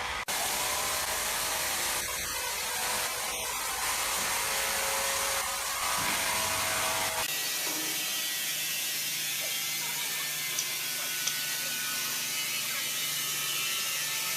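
Steady mechanical noise of machinery running, changing abruptly about seven seconds in to a thinner, lighter sound.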